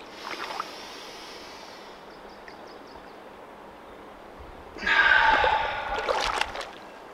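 A man's loud, voiced exhale, about a second and a half long, starting about five seconds in: a held breath forced out on release from a tensed qigong posture. A softer breath comes at the start, and a shallow creek trickles steadily underneath.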